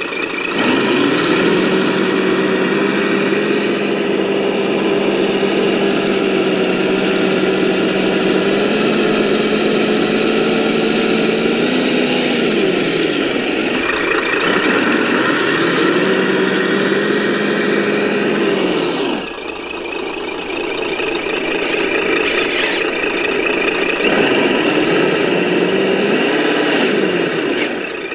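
RC scale 8x8 truck's motor and drivetrain running under throttle, a steady pitched hum that glides up and down in pitch as the truck starts, stops and changes speed several times, with tyres crunching over gravel and sand and a few short clicks.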